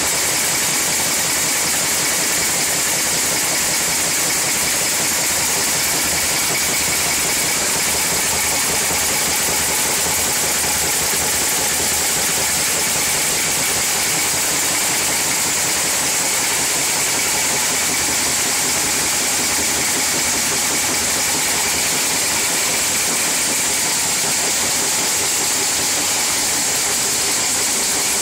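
XG2000 automatic through-hole insertion machine running continuously as it inserts components into LED lamp circuit boards: a loud, steady mechanical noise with a high hiss and no pauses.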